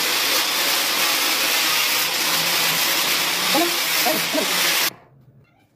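Angle grinder with an abrasive disc running against the edge of a plywood counter top, grinding it into a rounded curve. It runs steadily and cuts off suddenly about five seconds in.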